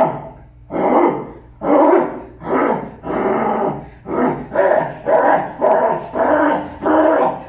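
A man's voice making a rapid run of short, animal-like vocal calls, about two a second, in the manner of a Tastoán character's cries.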